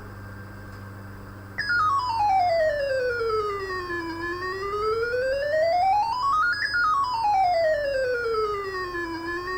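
Arduino-generated police-siren wail: a buzzy electronic tone that starts about a second and a half in. It slides slowly down in pitch, back up, and down again, each fall or rise taking about two and a half seconds. A low steady hum is heard before it starts.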